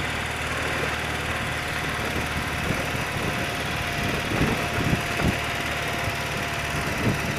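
A 30-year-old BMW motorcycle's engine running steadily as the bike rides along, under wind and road noise, with a few low thumps in the second half.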